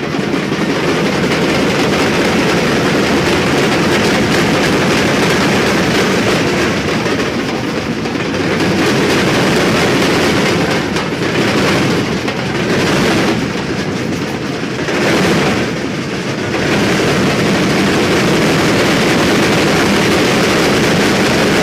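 A large ensemble of drums playing together: a dense, loud, continuous wall of drumming, with a few brief dips in volume about halfway through.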